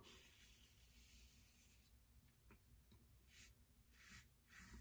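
Faint scratchy rasp of a Parker 24C open-comb safety razor with a Feather blade cutting stubble through shaving lather, in short strokes across the grain, with a few strokes close together near the end.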